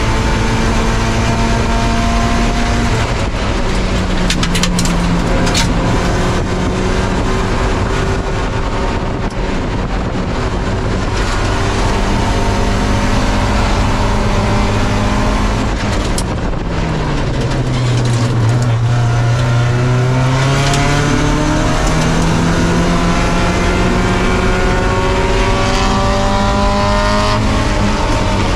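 Spec Miata's four-cylinder engine racing at high revs, heard from inside the car, with gear changes stepping the pitch. The revs fall away about two-thirds of the way in, then climb steadily again through the gears.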